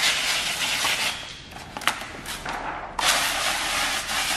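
Hand pump sprayer hissing as it mists slip solution onto the adhesive side of paint protection film. There are two long sprays, the second starting about three seconds in, with a couple of sharp clicks between them.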